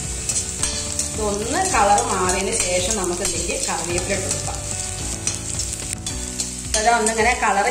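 Sliced shallots sizzling in hot oil in a cast-iron kadai, with a metal spoon scraping and stirring them against the iron.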